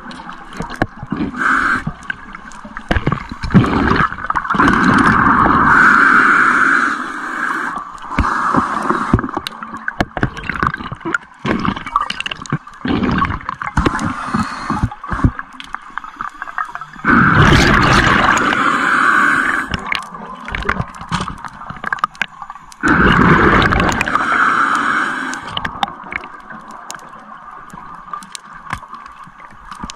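Scuba diver's regulator underwater: gurgling bubbles of exhaled breath, with three long loud bursts of bubbles several seconds apart and quieter crackling and bubbling between them.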